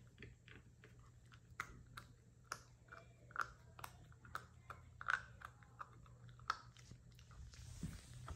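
A puppy chewing on a hard dog chew: irregular sharp crunches and clicks of teeth on the chew, the loudest about five seconds in, over a faint steady low hum.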